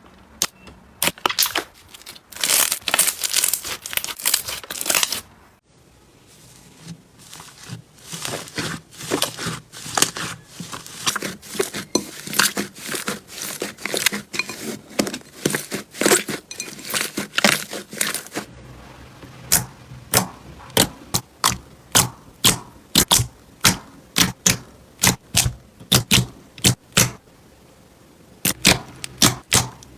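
Slime being squeezed and pressed by hand, giving dense crackling and a long run of sharp pops and clicks.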